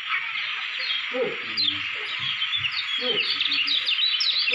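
Caged kecial kuning (Lombok white-eye) singing in quick runs of high, thin chirps and short trills, busiest near the end.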